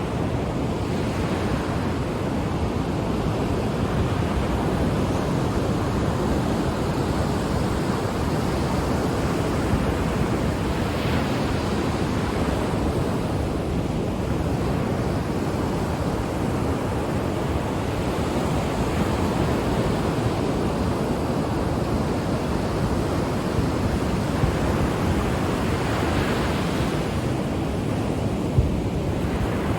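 Ocean waves washing onto the shore: a steady, dense surf noise that swells and eases as successive waves break.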